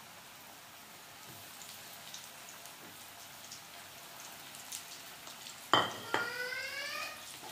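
Potato fingers deep-frying in hot oil in a wok: a steady sizzling hiss with light crackles. Near the end a sharp clank sounds twice, followed by a short ringing tone that rises slightly in pitch for about a second.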